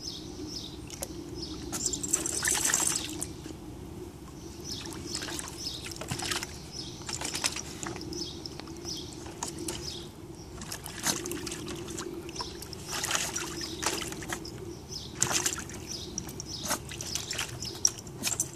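Small dog splashing and sloshing in shallow water in a plastic kiddie pool, in irregular short splashes as it moves about.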